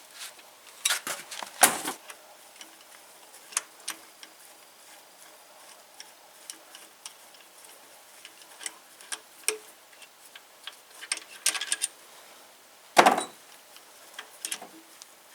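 Irregular metallic clicks and clinks of hand tools working tight bolts on a connecting rod cap, with a few louder knocks about a second and a half in and again near the end.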